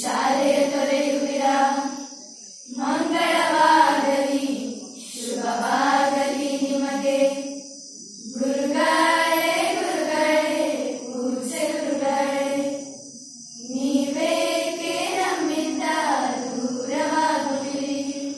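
A group of schoolgirls singing a parting song together, in sung phrases a few seconds long with short breaks between them.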